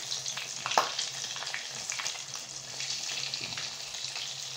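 Puff pastry patties deep-frying in hot oil, a steady crackling sizzle, as a perforated metal skimmer stirs them in the steel pot. There is one sharp tap just under a second in, with a faint low hum underneath.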